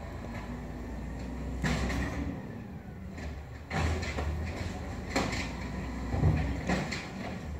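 Automated side-loader garbage truck's engine running steadily while its arm lifts a wheeled cart, tips it into the hopper and sets it back down. Several sharp knocks and bangs come as the cart and its lid strike the truck, the loudest about six seconds in.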